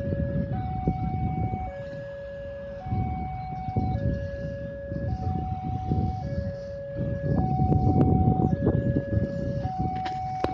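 Railway level-crossing warning alarm sounding its alternating two-tone signal, high and low tones swapping about once a second, which warns that a train is approaching. Waves of low rumbling noise run underneath, and near the end there are knocks of the phone being handled.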